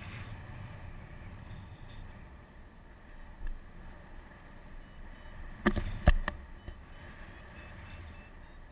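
Wind buffeting an action camera's microphone in tandem paraglider flight, a steady low rumble. A few sharp knocks a little past halfway.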